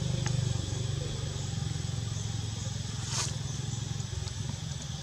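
A motor vehicle's engine running on the road, a steady low hum that slowly fades as it moves away. A brief hiss about three seconds in.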